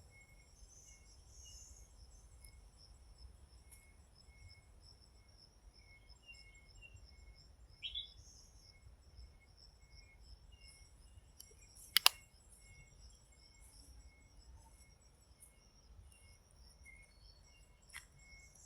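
Faint forest ambience: insects keep up a steady high-pitched buzz, and a short chirp repeats at a regular pace. A sharp click about twelve seconds in is the loudest sound, and a fainter click comes near the end.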